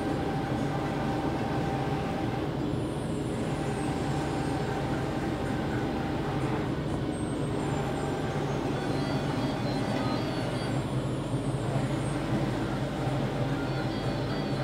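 JHFVista T90 wide-format printer with eight Konica 512 print heads running while printing: a steady mechanical hum, with a faint whine that drops out and comes back about every four seconds as the print-head carriage sweeps back and forth.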